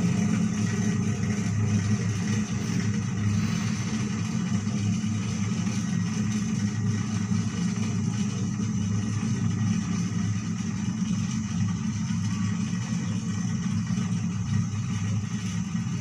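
Steady low drone of a chairlift-style sky ride's moving chair and haul cable, which a rider takes for vibration coming from behind.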